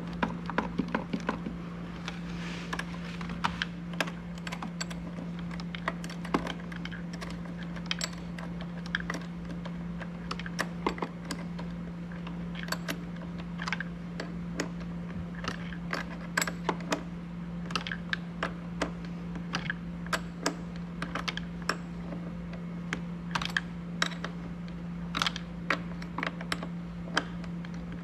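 Irregular light clicks and taps of a hand wrench and metal parts being handled while a car battery terminal is fastened, sometimes several in a second, over a steady low hum.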